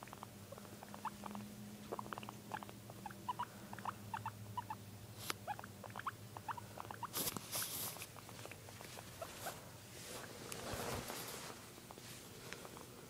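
Guinea pig making a string of short, high squeaks, several a second, that thin out after the first half. Rustling from the animal being handled and stroked comes in after the squeaks.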